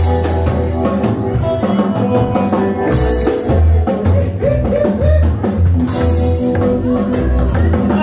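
Live rockabilly trio playing: drum kit, upright bass and hollow-body electric guitar, with loud cymbal crashes about every three seconds.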